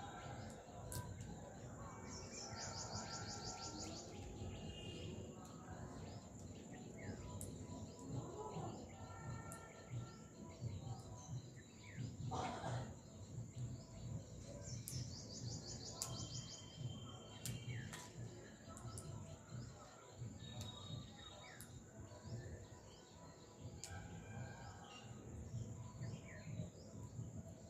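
Birds chirping and calling in short scattered notes, twice with a fast high trill, over a steady low background rumble.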